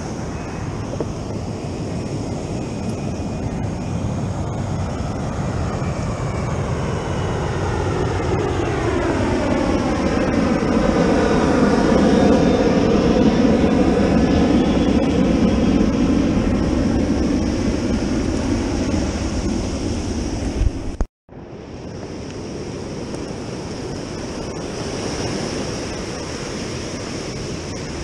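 A jet airliner passing low overhead, swelling to its loudest about twelve seconds in and then fading, over steady surf and wind on the microphone. The sound drops out completely for a moment about 21 seconds in.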